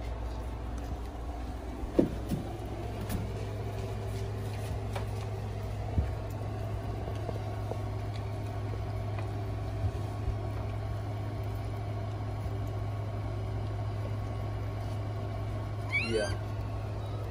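A steady low hum with a few soft knocks, and near the end one short, high squeal from a newborn puppy.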